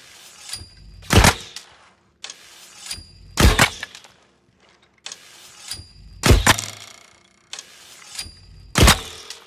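Bow-and-arrow sound effect played four times, about two and a half seconds apart. Each time there is a click with a short metallic ring, a rasping draw, and then a loud sharp snap as the arrow is loosed.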